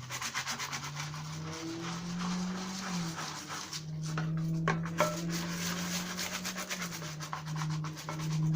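Kitchen scrubbing brush scrubbing stubborn sticker residue off a wet plastic part in rapid back-and-forth strokes.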